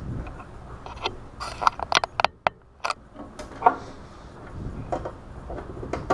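A Phillips screwdriver turning a screw back into the cover panel of a Saniclear unit: a run of irregular clicks and short scrapes, busiest about two seconds in.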